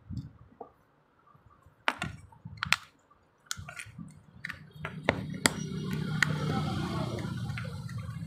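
Scattered sharp clicks and taps of plastic switch parts and a screwdriver handled on a workbench while a car's headlight combination switch is fitted back together. A steady low hum comes in about halfway through.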